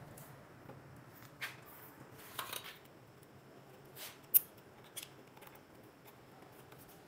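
Faint handling noises of a Honda CG 125 tachometer cable being fed through the plastic headlight housing: a few brief rustles and scrapes, and one sharp click a little past the middle.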